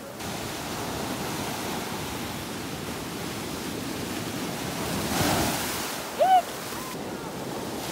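Ocean surf washing steadily on the shore, swelling as a wave breaks about five seconds in. A short high rising call cuts in briefly just after, about six seconds in.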